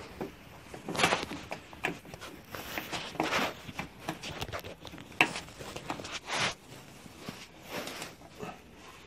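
A screwdriver and a thin metal tool scraping and clicking on a screw as it is tightened, in irregular strokes about a second apart, with the rustle of a fleece sleeve.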